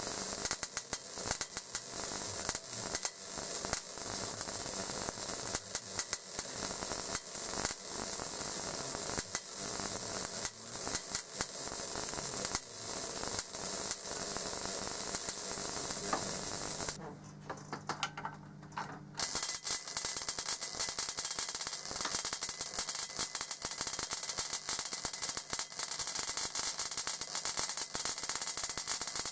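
High-voltage sparks from a Leyden-jar capacitor bank crackling rapidly and irregularly. They stop for about two seconds a little past the middle, then start again.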